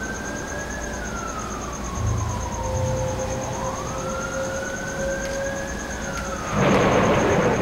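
Wailing emergency siren rising and falling slowly, twice, in long sweeps. Near the end a loud rushing burst of noise breaks in over it.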